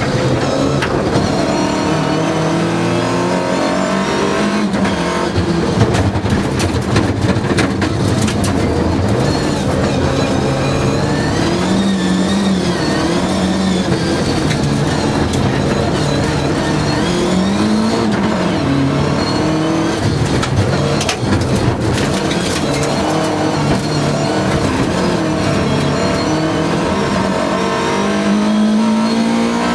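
Rally car engine heard from inside the cabin, revving hard and rising and falling in pitch again and again through gear changes and corners. Stones and gravel rattle sharply against the car's underbody at times, most around a quarter of the way through and again about two-thirds in.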